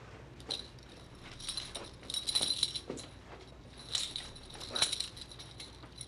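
Irregular metallic jingling and rattling in several shaken clusters, loudest about two and a half and five seconds in.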